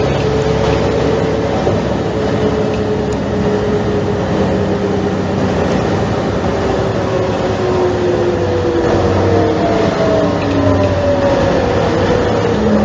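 Mercedes-Benz O345 Türk city bus running: diesel engine drone with a whine from the drivetrain that glides slowly up and down in pitch as the bus speeds up and slows.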